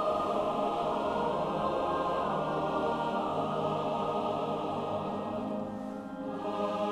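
Film score: a choir singing sustained chords, softening briefly near the end and then swelling again.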